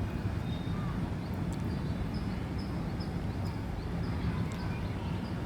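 Baby squirrel giving a run of short, faint, high-pitched squeaks, several a second, over a steady low rumble.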